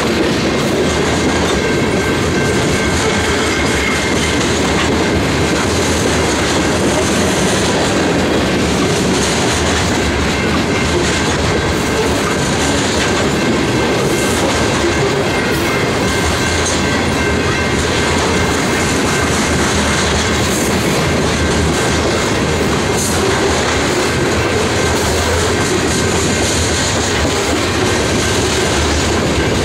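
Loaded covered hopper cars of a heavy freight grain train rolling past, the steady rumble and clickety-clack of steel wheels on the rails, with a faint steady high ringing tone over it.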